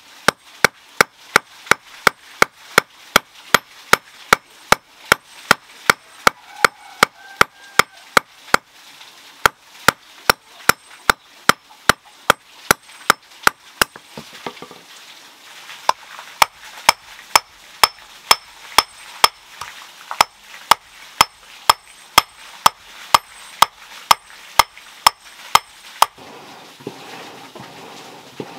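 Hand hammer striking red-hot iron on a stone anvil: steady blows about two a second, each with a short metallic ring. The blows pause briefly about halfway and stop a couple of seconds before the end.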